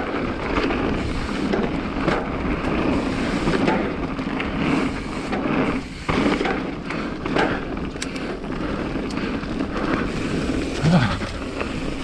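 Mountain bike riding fast down a dirt trail: steady tyre roar and wind buffeting on the microphone, with frequent rattles and knocks from the bike over bumps.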